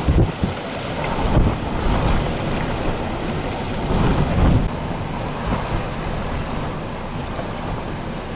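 Tropical storm winds buffeting the microphone in several heavy gusts over a steady rush of wind and choppy storm-surge water.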